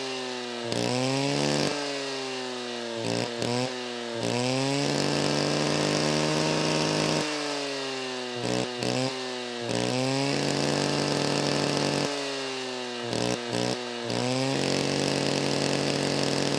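Chainsaw engine revved in quick throttle blips, its pitch sweeping up and down, then held at high speed for a couple of seconds. The cycle of blips and held revs repeats three times.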